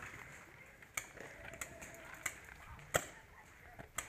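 Paintball markers firing during a game: single sharp pops at irregular intervals, about one a second, the loudest about three seconds in.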